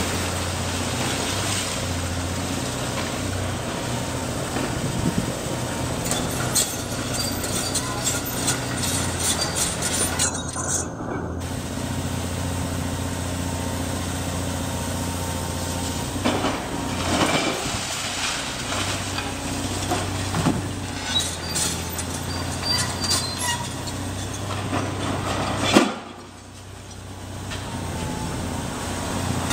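Caterpillar 330D hydraulic excavator working a demolition job: its Cat C9 diesel engine running steadily under load while the grab tears into the house, with debris clattering and clinking in bursts. A loud crash about 26 seconds in.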